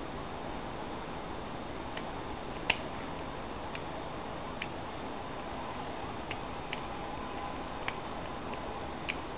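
Scattered small metallic clicks, eight or nine at irregular intervals, as a lock pick works the pins of an MCM serrated-pin half cylinder. One click about a third of the way in is clearly the loudest.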